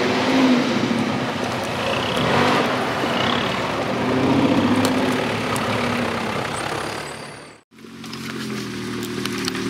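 Off-road 4x4s on a dusty dirt track, engines revving up and falling back over tyre noise as they drive past. About three-quarters of the way through the sound drops out briefly. A 4x4's engine then runs steadily at low revs as it crawls up a rocky gully.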